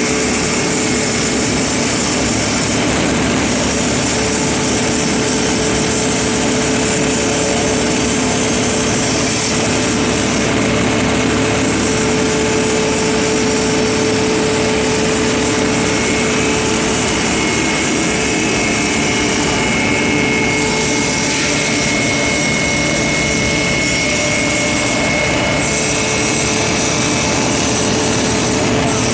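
Spice grinding machine running steadily: a loud, even grinding noise with a constant whine.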